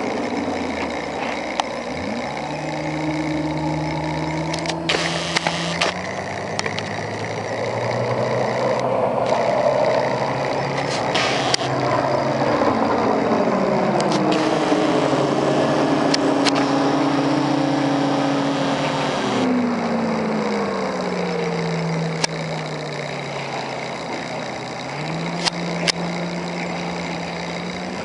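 Four Winns 210 Horizon runabout's sterndrive engine running under way. Its revs rise early, ease down slowly through the middle and climb again near the end, over a rush of wind and water noise with several sharp knocks.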